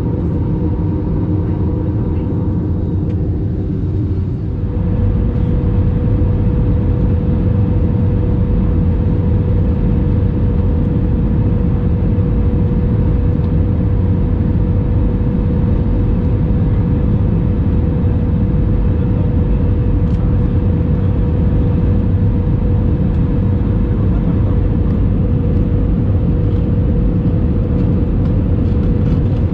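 Airbus A321 cabin noise: the jet engines and airflow making a loud, steady hum. About four and a half seconds in, the engine tone shifts and the noise gets a little louder as thrust changes on the approach to landing.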